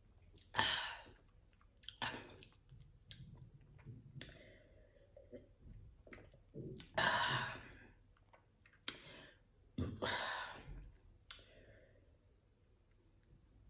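A person drinking from a glass, heard close up: swallows with small mouth clicks, and several short breathy exhales between sips. The loudest exhales come about half a second in and about seven seconds in.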